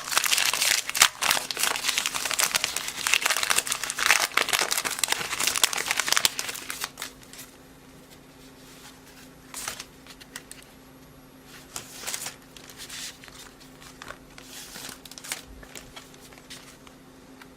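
Trading-card pack wrapper and cards crinkling and rustling in the hands for about the first six seconds, then much quieter, with only an occasional short crinkle.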